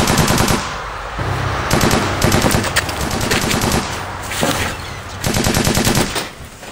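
Several bursts of rapid, evenly spaced sharp shots, like automatic gunfire.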